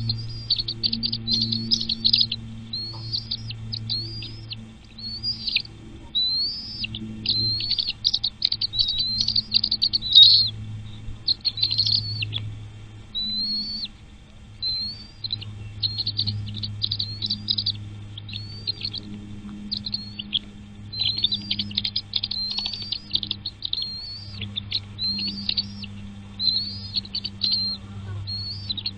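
Nestling birds chirping in quick, high-pitched runs of short notes, with only brief pauses, over a low steady hum.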